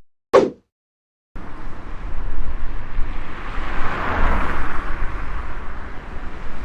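A short falling swish, then after a second of silence a steady rumbling noise that swells about four seconds in.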